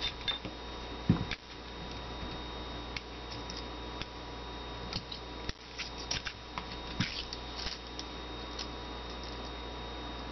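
Small metal clicks and handling knocks from the partly reassembled frame of a Beretta 21A Bobcat pistol being turned and worked in the hands, with a louder knock about a second in.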